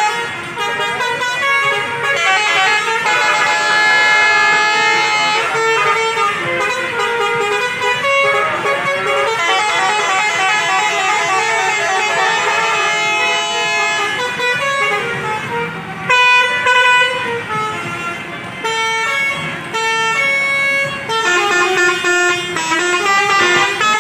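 Basuri 'telolet' musical bus horns playing quick runs of held notes, several tunes overlapping at once in a horn battle.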